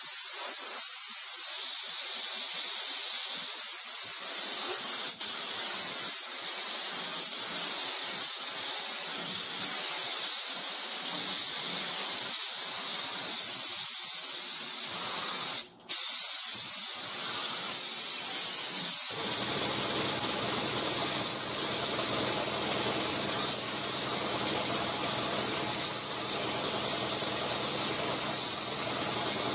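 Binks Model 7 spray gun with a 1.8 mm fluid tip spraying a tack coat of single-stage acrylic urethane at about 25 psi: a steady hiss of air and atomised paint that starts at once and cuts out briefly a little past halfway. About two-thirds of the way through, a steady low hum joins underneath the hiss.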